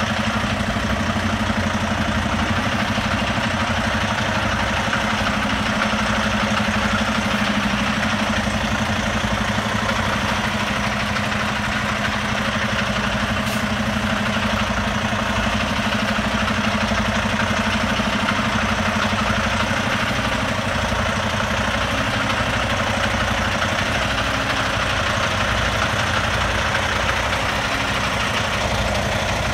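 Heavy diesel truck engine idling steadily, with an even low throb.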